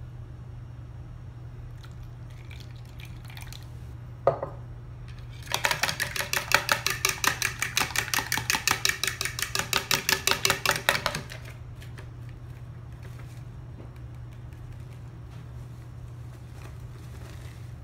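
A spoon beating eggs and water in a mixing bowl: a fast, even clatter and slosh of about six strokes a second, lasting some five seconds from about five and a half seconds in. A single knock comes shortly before it.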